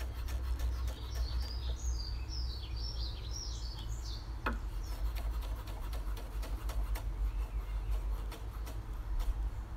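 A large chef's knife slicing garlic on a wooden chopping board, making many light, irregular taps. Birds chirp between about 1.5 and 4 seconds in, with a single falling whistle just after, over a steady low rumble.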